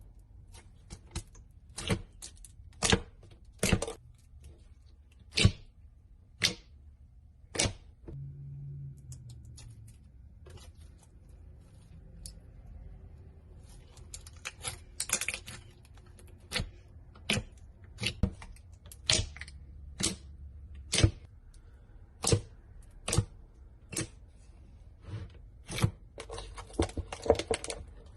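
A series of sharp clicks or taps, irregular and roughly one a second, with a quick flurry of them near the end.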